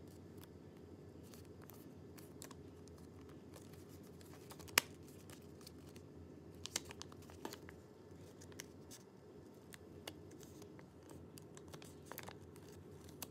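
Square of origami paper being folded and creased by hand: faint scattered crinkles and crisp ticks of paper, the sharpest about five seconds in, over a low steady room hum.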